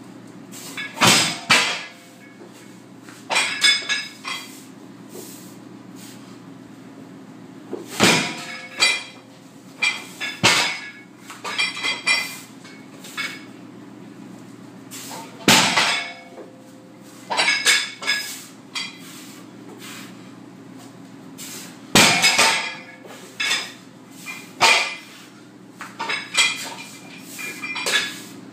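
A loaded 165 lb circus dumbbell clanking through overhead reps. There is a heavy metallic clank about every seven seconds, each followed by lighter clinks and rattles as the plates and handle shift.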